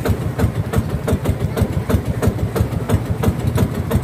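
Outrigger boat's engine idling, an even, rapid chugging of about seven or eight beats a second.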